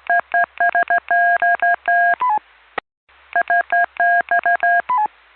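Morse code keyed on a Baofeng handheld radio's orange call button and carried over the radio: short and long beeps of one steady pitch. The beeps come in two runs with a brief gap between them. Each run ends with a quick two-note falling end tone and a sharp squelch click as the transmission drops.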